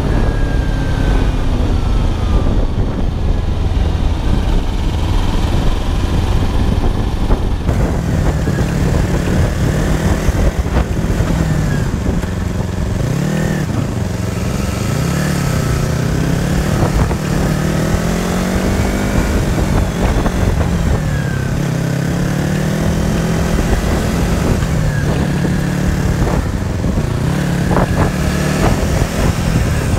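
Kawasaki 250 cc parallel-twin motorcycle engine running at low road speed, recorded on board with wind and road noise, its note rising and falling with the throttle. From about eight seconds in the recording plays at double speed, so the engine note sounds higher and its rises and falls come quicker.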